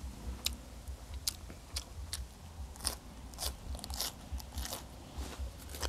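Close-miked eating: a string of crisp crunching bites and chewing, a sharp crunch about every half second.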